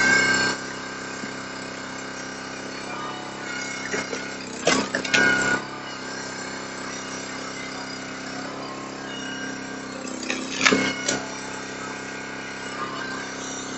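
Small engine running steadily, with two short, louder noisy bursts about five seconds in and again near eleven seconds.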